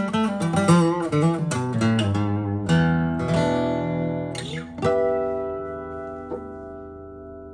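1970s Aria D-60 dreadnought acoustic guitar built by R. Matsuoka, played in a quick run of picked notes, then two strummed chords about three and five seconds in. The last chord is left to ring and slowly fades out.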